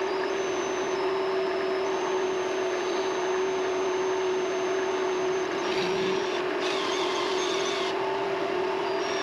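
Vevor MX400 mini lathe running at a steady speed: a constant motor hum, with faint thin high tones that shift now and then.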